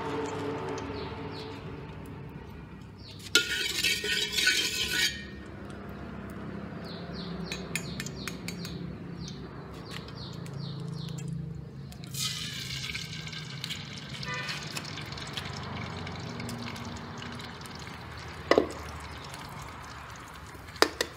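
Metal spatula scraping and clinking against a steel wok, with light frying of oil. Two sharp knocks, one a few seconds before the end and one at the very end, as eggs are cracked on the wok and start to fry.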